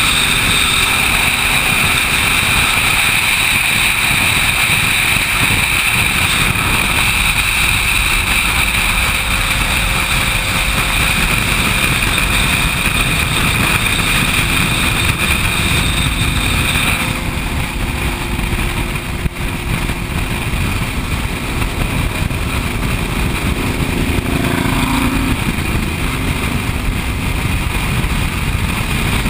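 Steady wind rush on a motorcycle-mounted camera at highway speed, mixed with the drone of several motorcycle engines riding in a group. A thin high whine in the sound stops about halfway through.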